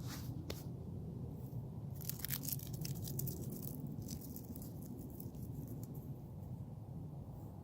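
Light rustling and scattered small crackles over a steady low background rumble, busiest from about two to three and a half seconds in.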